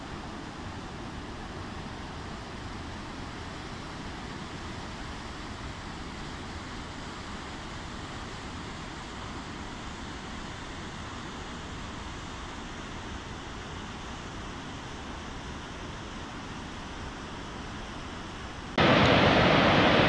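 Steady rush of a waterfall cascading over boulders into a stream. Just before the end it cuts suddenly to a much louder, denser rush of water from a larger waterfall.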